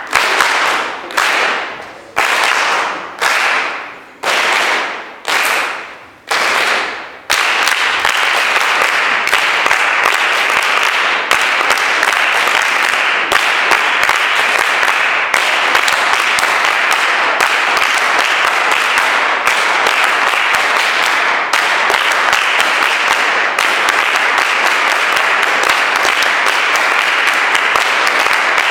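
An audience clapping together in unison about once a second, each clap ringing out in the hall, seven times over. It then breaks into continuous applause.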